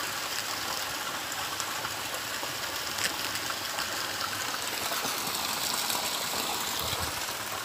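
Water from a spring spout splashing steadily onto rocks, a continuous rushing hiss.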